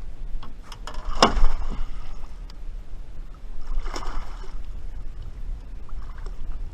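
Two splashes at the water's surface, a sharp loud one about a second in and a second one near four seconds in, over a steady low rumble.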